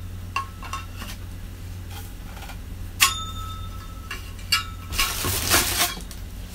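Vacuum cleaner extension tubes being handled: scattered knocks and a sharp clink about three seconds in that rings briefly. About five seconds in comes a second or so of rustling, all over a low steady hum.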